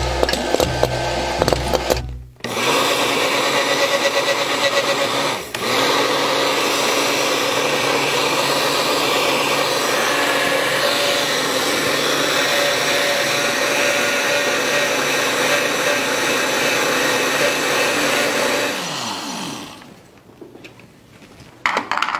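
Countertop blender motor running loud and steady while blending a milkshake, with a brief dip about five seconds in. Near the end it winds down with falling pitch. Music plays briefly at the very start.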